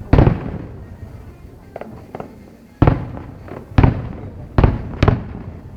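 Aerial fireworks bursting overhead: five loud booms at irregular intervals, each trailing off in a rolling echo, with a couple of fainter pops in between.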